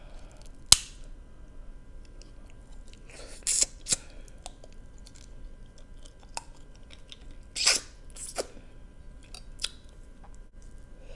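Crab leg shells cracking and snapping as they are broken open by hand and teeth: several sharp, short cracks, with quiet chewing of the crab meat between them, close to the microphone.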